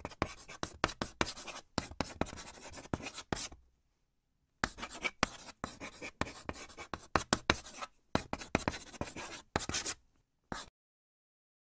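Handwriting strokes scratching on a surface, many quick strokes in two runs with a break of about a second between them and one last short stroke near the end.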